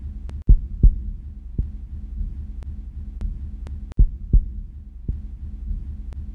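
Deep double thumps, like a heartbeat, over a steady low hum: one pair about half a second in and another about four seconds in, with lighter single thumps between them and faint scattered clicks.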